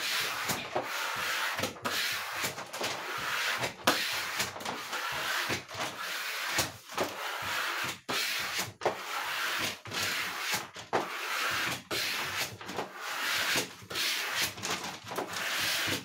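Plastic squeegee scraping over vinyl contact paper stuck to a fridge's side, smoothing it down to press out air bubbles, in repeated irregular rubbing strokes with the odd sharp click.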